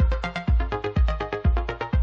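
Background electronic dance music: a steady bass-drum beat, two beats a second, under short repeated melodic notes.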